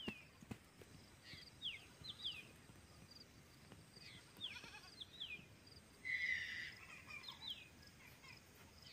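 Outdoor farmland ambience: birds calling with short downward-sliding chirps, often in pairs, over and over. About six seconds in, a louder bleating animal call stands out.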